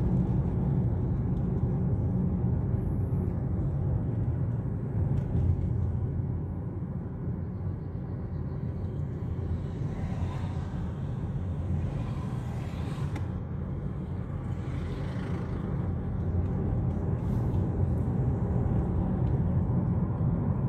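Steady low rumble of engine and tyre noise heard from inside a moving car's cabin, easing off somewhat in the middle and rising again near the end.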